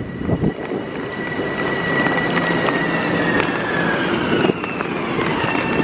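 Electric commuter train's motor whine, a high tone that slowly glides down in pitch, over the steady hiss of heavy rain.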